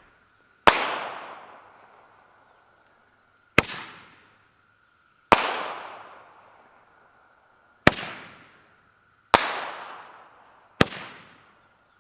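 Top Dog Roman candle shots breaking in the air with sharp bangs, six in all, spaced about one and a half to three seconds apart, each trailing off in a long echo. Cicadas buzz steadily in the background.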